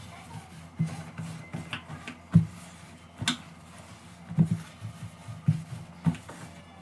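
Microfibre cloth wiping a glass-top gas hob, rubbing with irregular soft knocks and a few sharp clicks as the hand and cloth bump the burner caps and glass.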